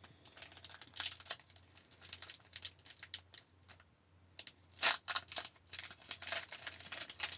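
Wrapper of a 2019-20 SP Authentic hockey card pack crinkling and tearing in fits as it is worked open by hand, with a short pause a little after halfway; the pack is being a little difficult to open.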